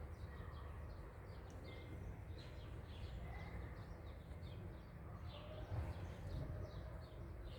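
Small birds chirping: rapid, high, short chirps repeating several times a second over a faint low rumble.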